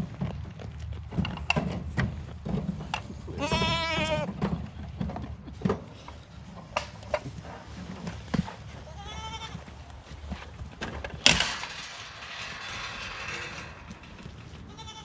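Goats bleating: one long wavering bleat about three and a half seconds in and a shorter one around nine seconds, over short knocks and crunching as they feed at hay. A loud sharp knock about eleven seconds in is followed by a few seconds of rustling.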